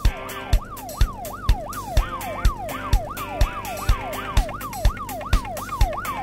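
Police car siren sounding a repeating falling wail, about two sweeps a second, over background music with a steady kick-drum beat.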